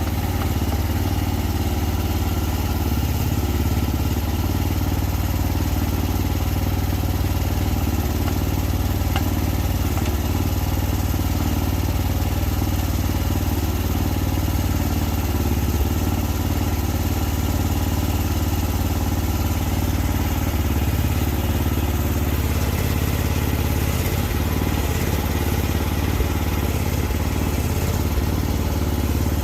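Small diesel engine of a compact earth-moving machine running at a steady speed, with no clear revving or load changes.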